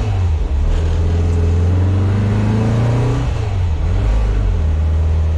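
A 2332 cc air-cooled Volkswagen flat-four stroker engine with dual Weber IDF 44 carburettors, pulling the bus along as heard from inside the cab. The engine note rises under acceleration and drops sharply at a gear change a little past three seconds in, then runs steady.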